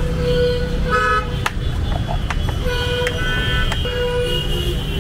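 Street traffic with several vehicle horns honking on and off in short and longer blasts over a steady low rumble, and a few sharp clicks in between.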